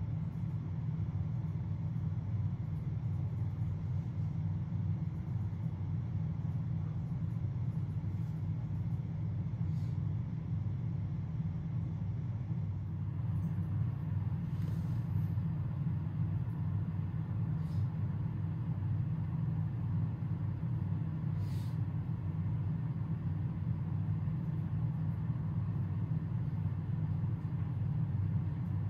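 Steady low rumble that does not change, with a few faint brief ticks.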